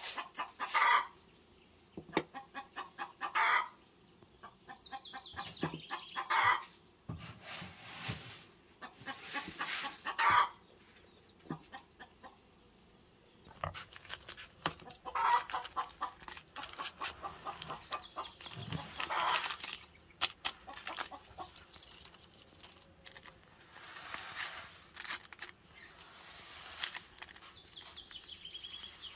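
Chickens clucking: short runs of quick stuttering calls, repeated every few seconds.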